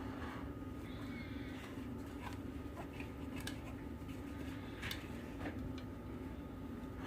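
A steady low hum with a few faint, light taps of kitchen utensils scattered through it.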